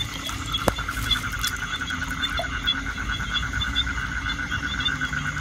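Frogs calling in a night chorus: a continuous fast pulsing trill with short chirps repeating above it.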